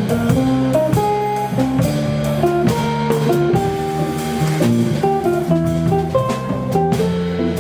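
Live jazz trio: a hollow-body archtop electric guitar plays a single-note melodic line over plucked double bass and a drum kit with cymbals.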